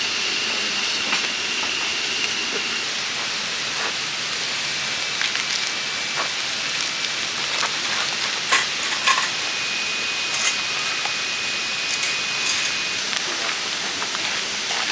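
Food sizzling in a hot pan: a steady hiss with scattered ticks and pops, and a faint thin whistle at times.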